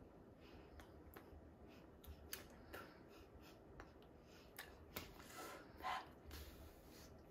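Near silence with faint clicks and soft rustles from a person's hands and sleeves as she signs, a little louder around five to six seconds in.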